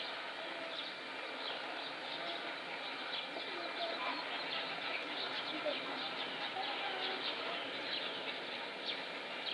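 Outdoor ambience of many small birds chirping and calling, short quick chirps scattered throughout over a steady background hiss.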